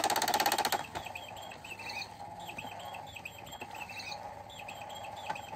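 Battery-powered circular cat toy running: a fast buzzing rattle from its motor stops just under a second in. Then electronic bird chirps repeat as short, identical twittering phrases over a steady hum.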